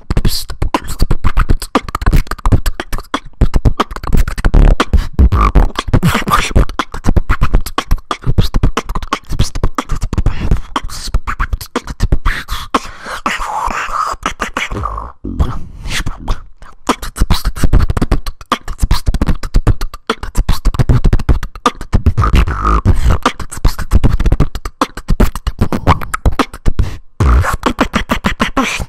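Solo beatboxing freestyle: a fast, dense stream of mouth-made kick, snare and hi-hat sounds, breaking off briefly about halfway through.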